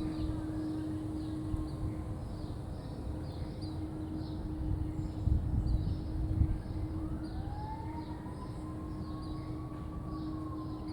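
Unexplained droning hum in the sky: a steady low tone, with a higher whine that glides up from about seven seconds in and then slowly falls. There are a few low rumbles near the middle.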